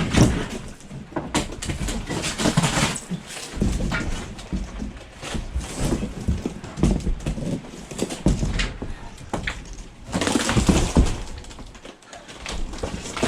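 Demolition of flood-damaged wall paneling: wood being pried and torn off, with repeated knocks and cracking and squeaky creaks of nails pulling out, loudest about ten seconds in.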